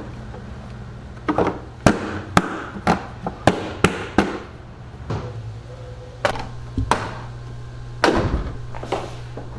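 Plastic engine cover on a Jeep Wrangler JK being worked and pressed down onto its mounts: a string of sharp clicks and knocks. About eight seconds in the hood is lowered and pressed shut with a heavier thump.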